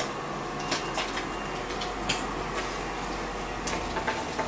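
Scad fish frying in hot oil: a steady sizzle with scattered sharp crackles.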